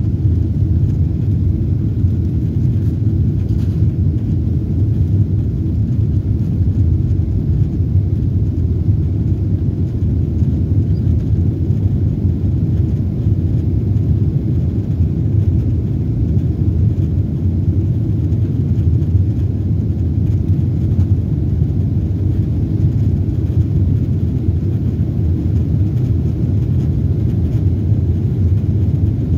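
Airliner cabin noise in flight: a loud, steady low rumble of jet engines and rushing air, unchanging throughout.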